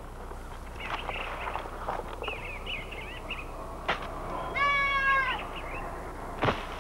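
A cat meowing: one long, clear meow a little past the middle, falling slightly at its end, with fainter high cries before it and a few sharp knocks.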